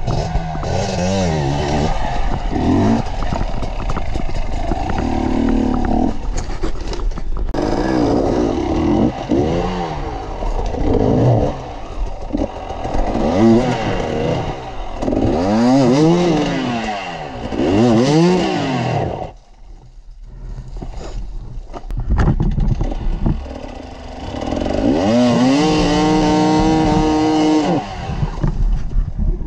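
Enduro dirt bike engines revving up and down over and over, the pitch rising and falling every couple of seconds as the throttle is worked over rocks. The engines drop back briefly about two-thirds of the way through, then hold a long high rev near the end.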